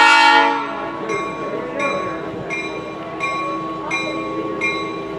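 An EMD SW8 switcher locomotive's air horn finishes a blast in the first second. A bell then rings steadily, about three strokes every two seconds, as the locomotive comes slowly on with its train.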